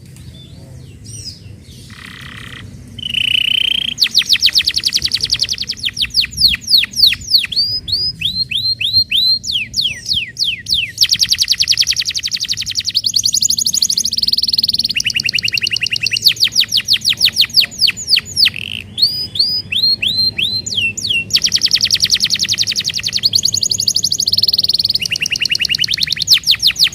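Domestic canary singing a long song of fast trills and rolls, each phrase a rapid run of rising chirps, starting a few seconds in and switching between phrases every second or two.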